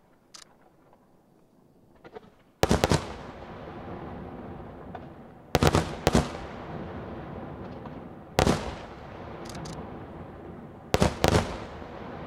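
Aerial fireworks shells bursting in four rounds of loud bangs, each round two or three sharp reports close together, followed by a long rolling echo that dies away. A few small pops come before the first round.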